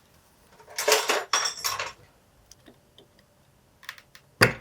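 Metal tools and small parts clattering and clinking as someone rummages through them, followed by a few light clicks and one sharp knock near the end.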